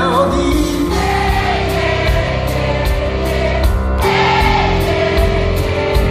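Live band playing the song with a steady beat while a crowd of concertgoers sings the refrain along in unison.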